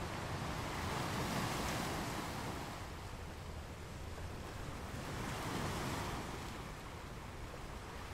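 Steady rushing noise that swells and ebbs twice, about four seconds apart.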